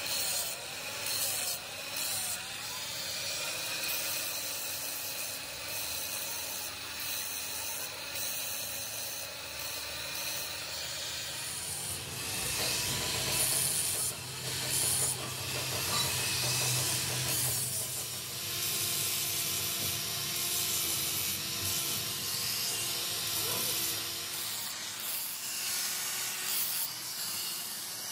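Handheld angle grinder with an abrasive disc grinding the chrome surface of a steel hydraulic cylinder rod: a continuous rasping grind with a wavering motor whine, heavier for several seconds in the middle.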